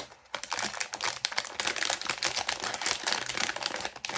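Crinkly plastic wrapping of a blind-box figure's sealed pack being handled and squeezed, a dense run of irregular crackles.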